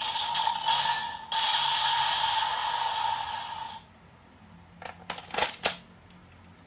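Kamen Rider Saber DX Seiken Swordriver toy belt playing an electronic sound effect through its small speaker: a steady buzzy tone that breaks off briefly about a second in and stops about four seconds in. About a second later come a few sharp plastic clicks as the toy is handled.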